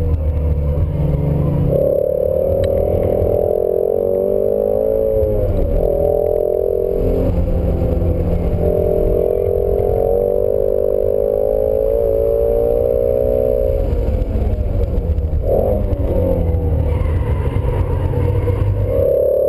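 2017 Ford Shelby Mustang GT350's 5.2-litre flat-plane-crank V8 pulling hard on track, heard inside the cabin. Its pitch climbs under throttle and dips and swoops several times as the car shifts and slows for corners.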